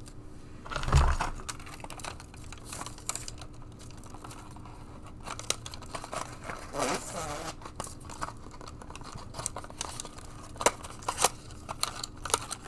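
Hands crinkling and rustling a metallic ribbon bow, then handling a box and paper strip of glue dots. There is a thump about a second in and a few sharp clicks near the end.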